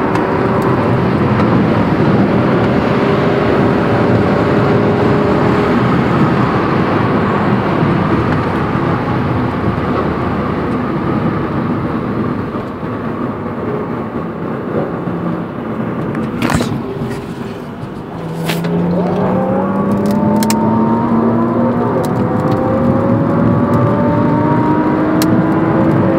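Engine and tyre noise of a BMW Z4 heard from inside its cabin at highway speed; a little past halfway the engine note drops away briefly, then rises steadily in pitch as the car accelerates hard.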